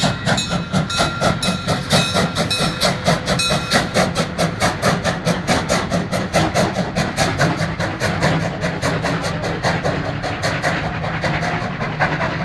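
Steam-hauled special train rolling through a level crossing: coaches and a steam locomotive pass with a rapid, even rhythmic clatter of about five beats a second. Steady ringing tones sound over the first three seconds or so, and the clatter grows duller as the train moves away.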